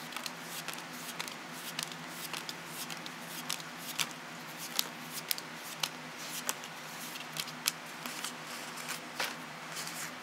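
Yu-Gi-Oh trading cards being handled and flipped through by hand: an irregular run of light, sharp card-on-card clicks and snaps, over a faint steady low hum.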